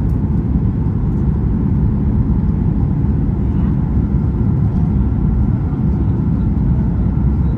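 Steady low rumble inside the cabin of a Boeing 737-800 in flight on approach: its CFM56-7B engines and the rush of air along the fuselage.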